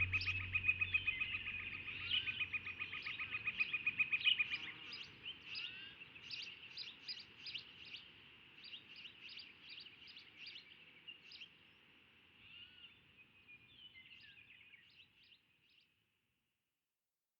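Forest songbirds chirping: a rapid, even trill for the first four and a half seconds, then scattered short chirps that fade out to silence about sixteen seconds in.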